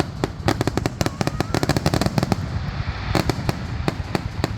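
Fireworks going off in a rapid, irregular string of sharp bangs and crackles, several a second, over a steady low rumble.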